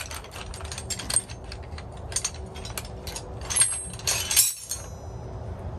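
Loose steel sockets and wrenches clinking and clattering against each other as they are sorted by hand, in quick irregular clicks, with two brighter ringing clinks a little past the middle.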